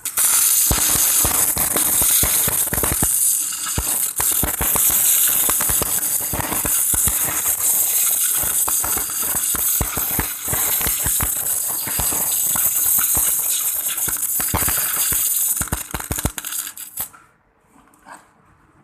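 MIG welding arc running bronze wire under argon shielding gas: a steady crackling hiss packed with sharp pops. It strikes at once and stops suddenly near the end as the arc is broken.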